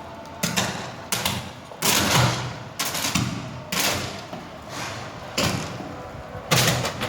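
Electric arcs on a 220 V supply going off in a series of sharp bangs, about eight, irregularly spaced, each a sudden crack that dies away quickly.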